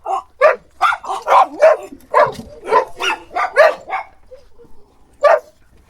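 A group of dogs barking: a quick run of short, overlapping barks for about four seconds, then a pause and a single bark near the end.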